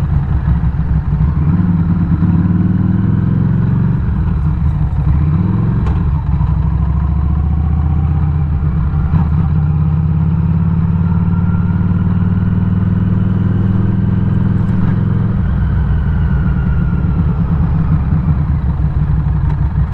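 Harley-Davidson Street 500's liquid-cooled V-twin running while riding. The engine note rises over the first few seconds, changes about six seconds in as it shifts, holds steady, then drops in pitch about fifteen seconds in.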